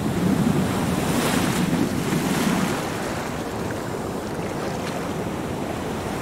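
Ocean water rushing, with wind noise on the microphone. The sound is steady and eases slightly about two and a half seconds in.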